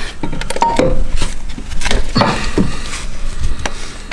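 Metal hand tools clinking and knocking against the crankshaft belt pulley of an Opel Vectra B V6 as its small Torx bolts are loosened: a string of irregular sharp knocks, some with a brief metallic ring.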